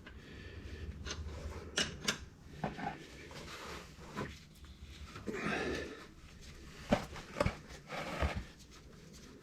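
Faint handling noises: light rubbing and a few scattered small clicks and knocks as a motorcycle's oil drain bolt is unscrewed by gloved hand.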